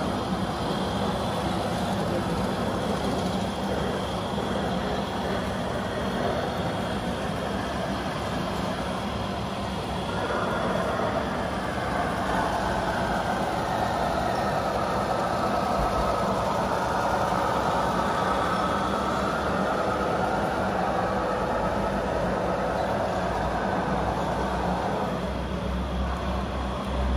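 Remote-control scale truck's sound module playing a diesel truck engine running steadily, growing fuller from about ten seconds in and easing back near the end.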